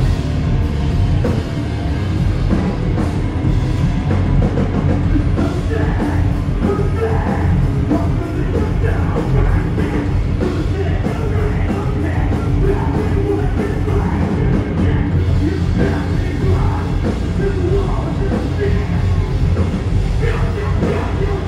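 Metalcore band playing live: loud distorted guitars, bass and drums, with yelled vocals over them.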